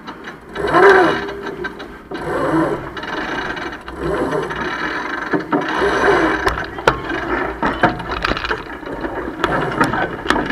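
Crew calling out and lines being worked aboard a Merit 25 racing sailboat, with the irregular ratcheting clicks of a sheet winch, mostly in the second half, over steady wind and water noise.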